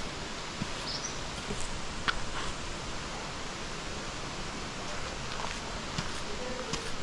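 Steady outdoor noise with scattered light rustles and knocks along a woodland trail, and a brief high rising chirp about a second in.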